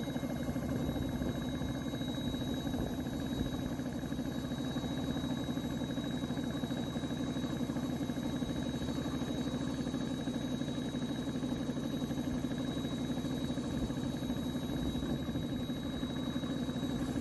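A motor running steadily, a constant hum that does not change in pitch or level.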